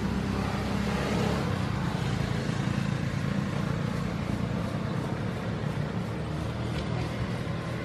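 A motor vehicle's engine running steadily, a low even hum with a hiss of noise above it.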